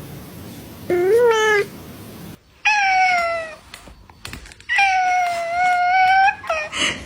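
Domestic cat meowing repeatedly: four meows, the third long and drawn out, about a second and a half.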